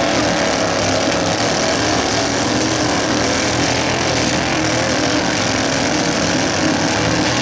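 Several riding lawn mower engines running together in a steady, loud drone as the derby mowers drive and collide.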